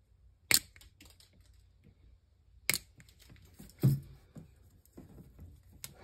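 Small flush cutters snipping the excess copper conductor ends of a Cat8 cable flush with the RJ45 plug's wire guide: four short, sharp snips spaced unevenly, the third with a heavier thud.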